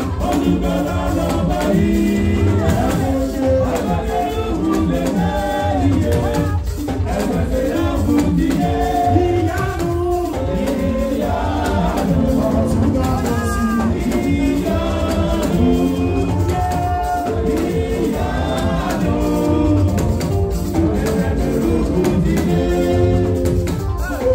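Live band music with singing into a microphone over a steady, loud rhythm and shaker percussion.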